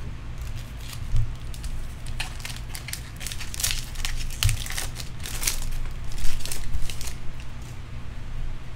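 Foil-lined Bowman baseball card pack being torn open and crinkled by hand: a run of sharp crackles and rips about two to seven seconds in, loudest near six seconds.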